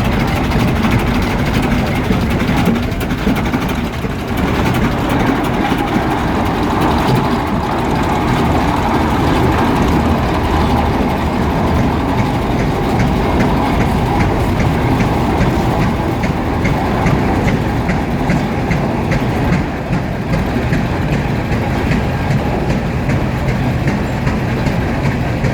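Tractor engines running steadily and loud, with a fast rhythmic chugging.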